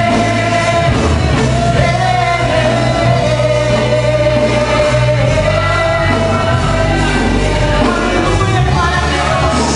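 Live gospel worship band playing a rock-style song, with a singer holding a long melody line over bass, drums and keys.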